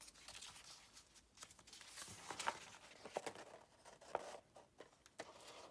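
Faint rustling and a few light taps of paper scraps and a collaged journal being handled.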